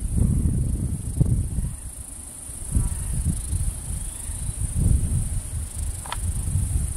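Steady high-pitched insect buzzing from the trees, under uneven low rumbling of wind on the microphone. A single short rising chirp sounds about six seconds in.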